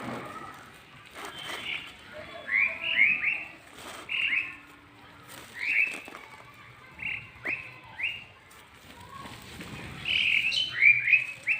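Small birds chirping: short, sharp notes that slide downward in pitch, often two or three in quick succession, repeated every second or two.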